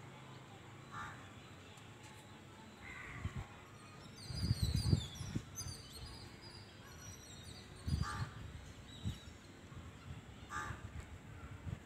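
Birds calling: a few short harsh calls several seconds apart, and a quick run of high twittering chirps about four to six seconds in. Low rumbling bursts sit under the chirps and come again near the end.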